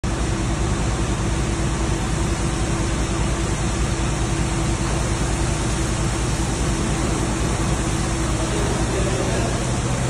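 A Yutong coach's engine running as the coach creeps forward at low speed, a steady low drone and hum under an even hiss.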